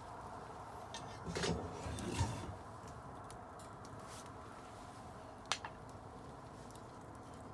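Wood fire burning with scattered small crackles over a steady hiss, a few louder knocks between about one and two and a half seconds in, and one sharp pop near the end.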